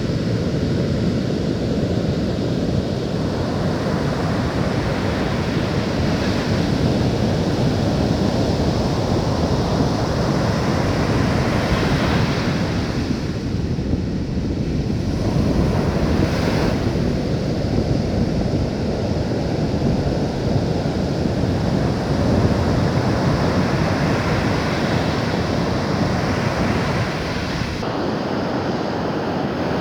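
Ocean surf: a continuous rush of waves that swells and eases every few seconds, with wind rumbling on the microphone.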